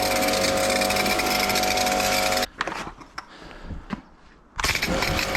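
Kärcher K7 pressure washer running on a low setting, its motor humming under the hiss of the spray. It stops for about two seconds midway, with a few light knocks in the gap, then starts up again.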